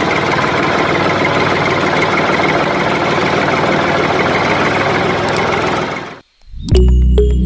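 A tractor engine idling steadily, then cutting off abruptly about six seconds in. Music with short chiming notes starts just after.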